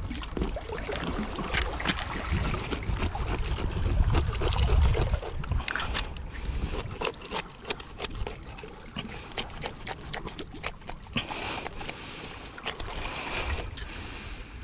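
Wet clicks and scrapes of a freshly caught kahawai being gutted, with seawater trickling and sloshing. A low wind rumble on the microphone is strongest about four seconds in.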